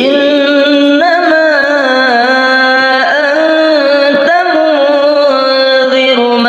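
A single voice chanting Quran recitation (tajwid) in a slow melodic style, holding long notes with ornamented pitch turns and brief breaths between phrases.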